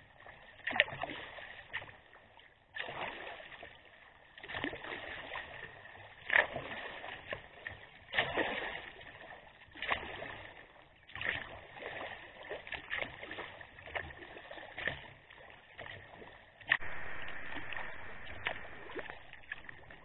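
Sea kayak paddle strokes: the blades dip and splash into shallow water every second or two.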